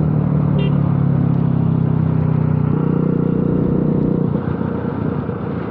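Bajaj Pulsar RS200's single-cylinder engine running steadily at cruising speed, heard from on the bike with road and wind noise. The engine eases off and gets quieter in the last second or so.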